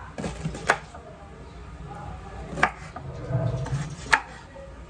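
Kitchen knife chopping on a wooden cutting board: three sharp, separate knocks about a second and a half apart.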